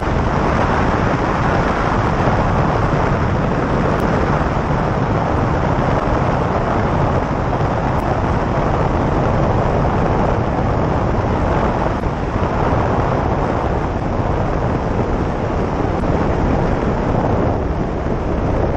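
Steady drone of a light single-engine high-wing plane's engine and rushing air, heard throughout a low final approach and touchdown on the runway.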